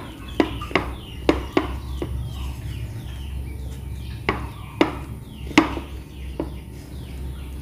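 A large spoon stirring a crumbly dough of flour, sugar and mashed banana in a glass bowl, clinking and knocking sharply against the glass at irregular intervals, roughly one to two times a second.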